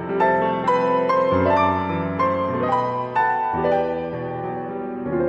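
Background piano music: a melody of struck notes over sustained lower notes.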